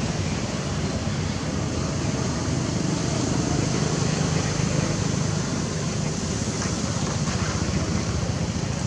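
Steady background noise with a low rumble and a hiss above it, unchanging, with no distinct events.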